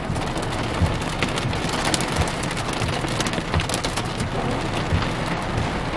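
Pea-sized hail mixed with rain pelting a vehicle: a dense, steady clatter of many small hard ticks over the hiss of rain.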